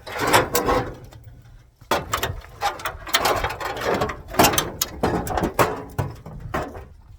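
Irregular metallic clattering, knocking and scraping from hand work on old car body sheet metal, coming in uneven bursts with short gaps, about a second in and again from about two seconds on.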